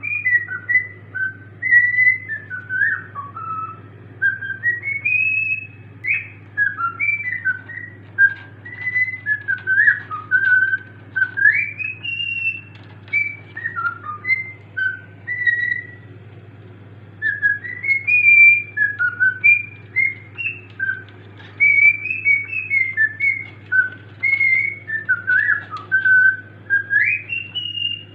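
Cockatiel whistling a song: a long run of clear whistled notes that glide up and down, with a short break about two-thirds of the way through, over a steady low hum.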